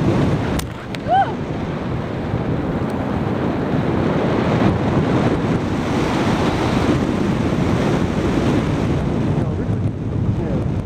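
Steady rush of wind over a handheld camera's microphone from the airflow of a paraglider in flight.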